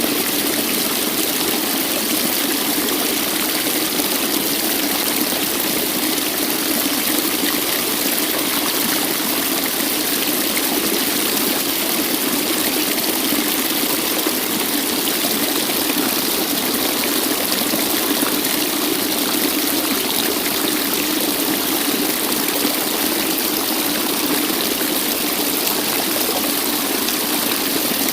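Waterfall rushing in a steady, unbroken hiss of falling water that does not change.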